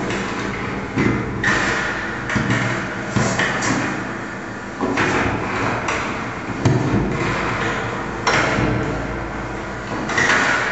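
Experimental sound-art piece: irregular knocks and thuds, roughly one a second, each fading off in a reverberant tail, over a steady low hum.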